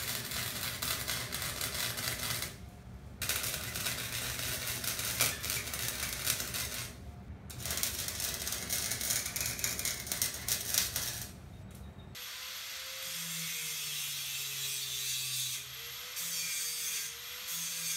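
Arc welder crackling and sputtering in three runs with short pauses between them, welding steel angle. About twelve seconds in, an angle grinder takes over, running steadily as it grinds the welds down.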